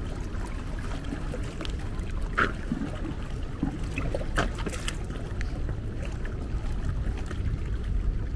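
Wind buffeting the microphone over small sea waves lapping against the stones of a jetty, with a few brief splashes about two and a half and four and a half seconds in.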